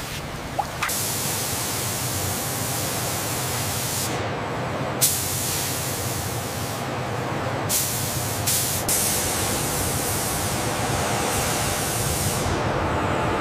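Steady hiss of high-pressure spray, changing abruptly several times, with a few sharp clicks, the sharpest about five seconds in.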